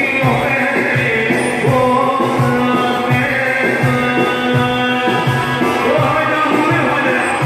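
Live band music: a male singer over a steady beat of about two thumps a second with sustained accompanying tones.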